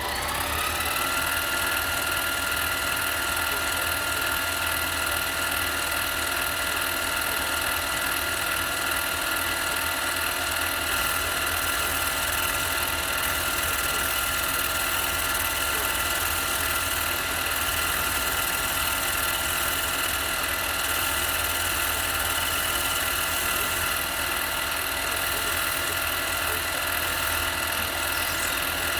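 Harbor Freight mini lathe running steadily at speed, a motor whine made of several steady tones, levelling off from its spin-up about a second in.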